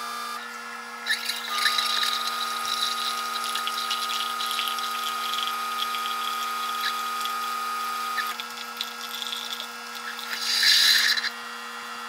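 Single-serve pod coffee maker brewing: its pump hums steadily while coffee pours into the mug, and a steady tone drops out about eight seconds in. Near the end comes a louder burst of hissing.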